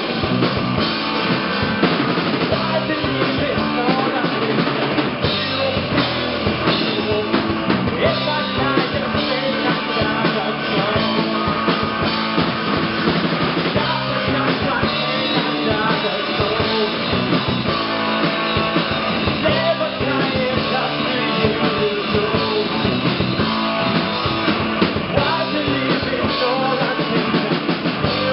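Live rock band playing with no vocals transcribed: drum kit, guitars and bass, loud and continuous.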